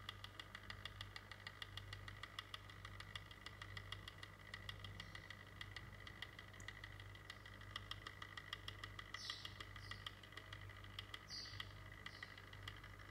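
Small electric motor of a rotating display turntable running with a steady low hum and a quick, even ticking.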